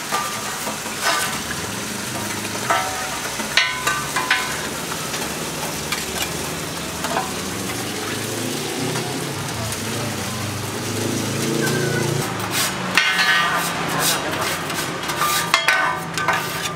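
Pad thai noodles frying in a hot wok: a steady sizzle, with the metal spatula striking and scraping the wok several times.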